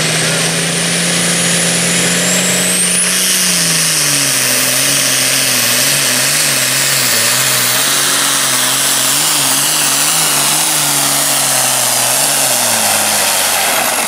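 Super Farm pulling tractor's turbocharged diesel engine running flat out under load. Its note drops about three seconds in as it lugs against the sled, wavers while held, and falls away near the end. A high whistle rises just before the drop.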